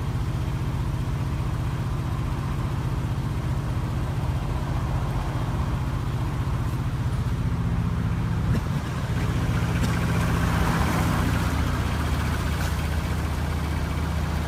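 A mobile crane's engine running steadily at idle, its pitch shifting slightly about eight seconds in.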